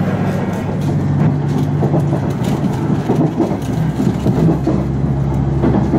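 KiHa 110 diesel railcar running, heard from inside the car: a steady diesel engine hum over wheel and rail noise, with a few light clicks.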